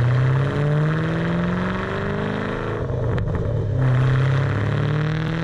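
Ford Mustang Shelby GT500's V8 accelerating hard, its pitch climbing. About three seconds in it drops at a gear change, then climbs again.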